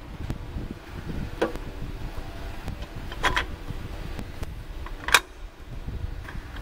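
Three sharp metallic clinks about two seconds apart, the last the loudest, as tools knock against metal while a hand works down in a car's engine bay. Under them runs a low rumble of microphone handling noise.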